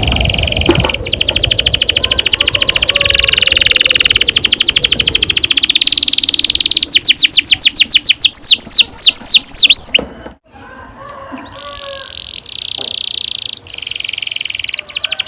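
Domestic canary singing long rolling trills, very fast repeated notes, finishing about seven seconds in with a run of quick downward-sweeping notes, about four a second. The song breaks off near ten seconds in for a couple of seconds of softer twitters, then a new trill starts.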